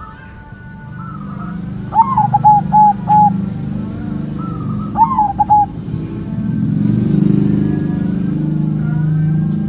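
White zebra dove (perkutut) cooing twice, about two seconds in and again near five seconds. Each song is a rising lead note followed by a quick run of short, clipped coo notes. A low engine rumble, like passing traffic, swells underneath and is loudest between the songs near the end.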